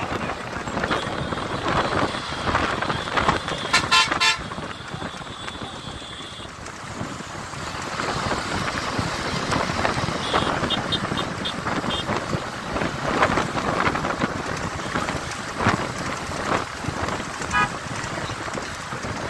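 Road and wind noise from a moving bus, taken at its open window, with vehicle horns sounding: a short horn blast about four seconds in, a quick run of high beeps around ten to twelve seconds in, and another brief toot near the end.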